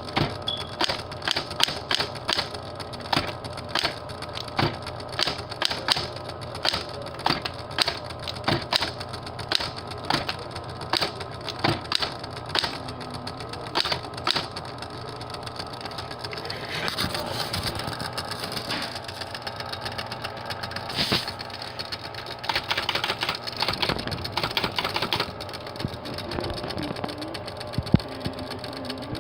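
Typewriter keys being struck, sharp clacks at an uneven pace of about two or three a second, turning into a denser clatter with a few louder strikes past the halfway point.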